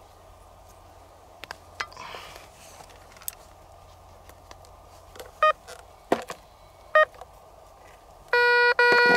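Metal detector sounding a target: two short beeps about halfway through, then near the end a loud steady tone that breaks off briefly and resumes as the coil sits over the hole, signalling more metal in the ground. A few light clicks and a rustle of soil being handled come earlier.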